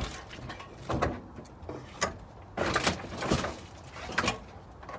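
Several knocks, bumps and rattles against a damaged car's body and door, as of someone climbing over the door into the seat, with the loudest cluster in the middle.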